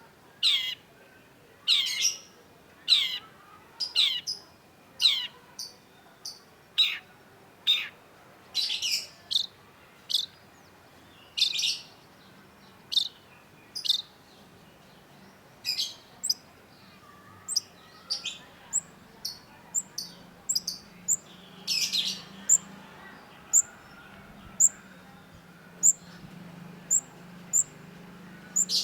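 Long-tailed shrike calling. Harsh, downward-sweeping calls come about once a second, and about halfway in they give way to short, high, thin notes repeated about twice a second.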